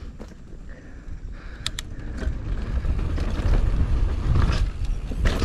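Mountain bike rolling over a dirt jump line, heard through a bike-mounted action camera: tyre rumble and wind on the microphone, growing louder toward the end, with a couple of sharp clicks from the bike about a second and a half in.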